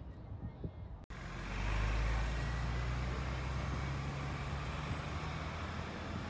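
A large vehicle engine running close by, a steady low hum under road noise. It comes in after a brief dropout about a second in, is loudest about two seconds in, and slowly fades.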